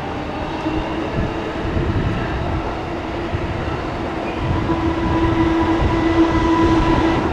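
Tokyo Metro Marunouchi Line 2000 series train approaching through the tunnel, still out of sight: a low rumble of wheels on rail that grows louder. A steady electric motor whine strengthens about halfway through.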